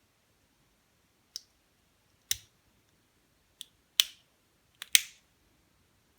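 Six sharp clicks and taps of hard objects, spread over about three and a half seconds, the two loudest coming about four and five seconds in.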